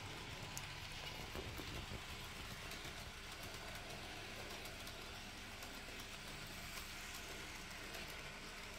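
N gauge model locomotive running around the track, its small electric motor whirring steadily with a low hum underneath.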